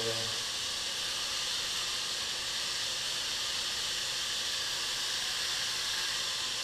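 Steady, even hiss with no distinct event in it.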